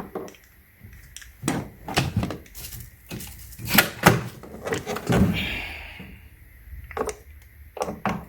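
Hard plastic clicks and knocks as detachable spinner wheels are pushed onto a PC+ABS hardshell suitcase and snapped into place with a locking button. A scatter of sharp strokes, loudest a little under four seconds in, with a brief scrape just after five seconds.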